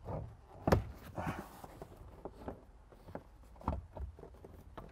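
MINI Cooper rear seatback being fitted onto its metal pivot brackets: scattered knocks and clunks as it is pushed into place, the sharpest about two-thirds of a second in, with a brief rustle of fabric just after.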